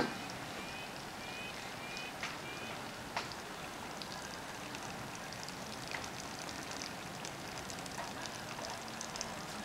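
Food sizzling on a campsite grill: a steady hiss with scattered sharp crackles and pops, the loudest a sharp click right at the start. A few short chirps, likely a bird, come in the first two and a half seconds.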